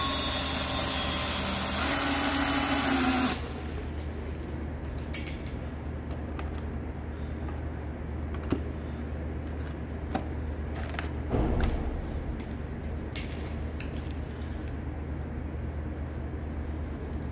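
Cordless DeWalt drill/driver running under load as it drives a long screw into stacked pine 2x10 boards, its pitch stepping up, then stopping about three seconds in. After that come quieter clicks and knocks of boards and loose screws being handled, the loudest knock a little past the middle.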